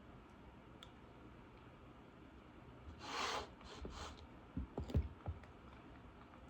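Soft eating and handling noises during a pizza meal: a short rasping rustle about three seconds in, two smaller ones just after, then a few soft knocks.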